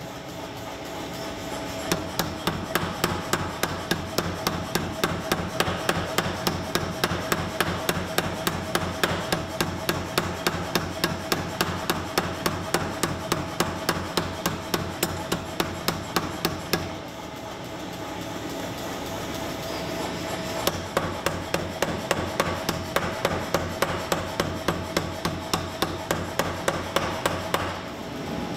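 Power hammer striking a red-hot axe head in quick, even blows, about four to five a second, over a steady machine hum. The blows stop for a few seconds a little past the middle, then start again.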